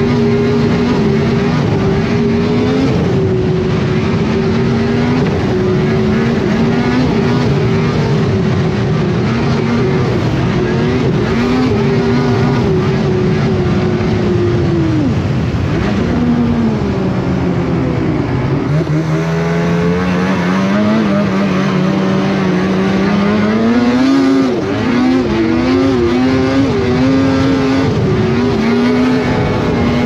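Snowmobile engine running at high revs at speed, dropping in pitch as the throttle eases off about halfway through, then climbing again as it speeds back up, with a smaller dip and rise a few seconds later. Wind rushes over the helmet microphone.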